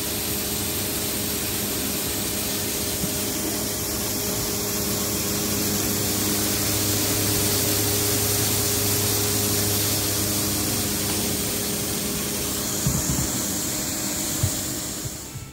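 Kubota KL340 tractor's diesel engine running steadily under a loud, even rushing hiss from the towed spreader throwing out rice husks, with a few knocks near the end.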